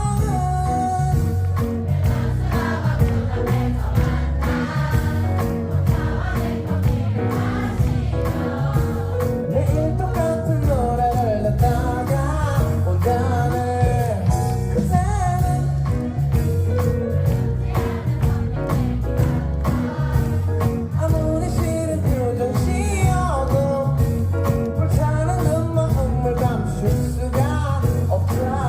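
Live band playing a song with a steady beat and heavy bass, with a singer and a crowd singing along together in chorus.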